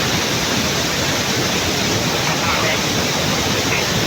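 Loud, steady rush of flash-flood water pouring down Mae Sa Waterfall.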